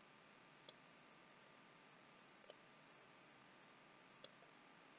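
Near silence with faint steady hiss, broken by three faint computer mouse button clicks a little under two seconds apart.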